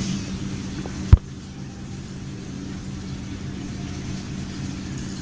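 TecQuipment H1F hydraulic bench pump running with a steady hum while water circulates through the pipe rig. A single sharp knock about a second in is the loudest sound.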